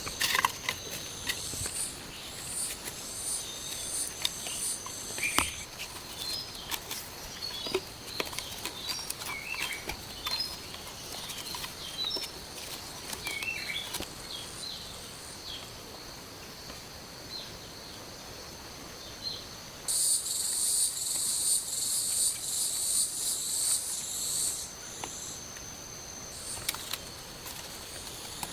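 Insects chirping and trilling in a high pitch, with a louder run of pulsing chirps about twenty seconds in. Small bird-like chirps and scattered clicks and knocks sound in between.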